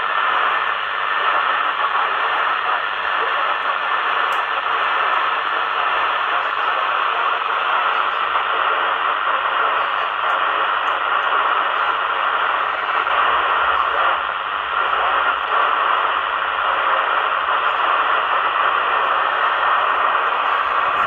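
CB radio receiver's speaker giving a steady static hiss, its squelch open on FM.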